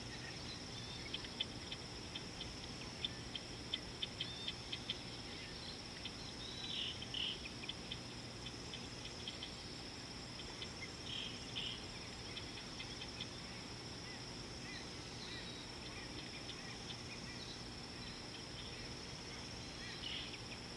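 Steady high-pitched drone of an insect chorus in African bush, with a scatter of quick ticks in the first few seconds and a bird calling briefly three times, about 7, 11 and 20 seconds in.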